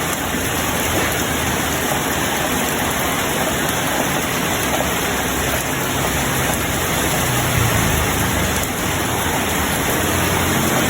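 A loud, steady hiss of noise with no clear rhythm or breaks, as from heavy rain or wind.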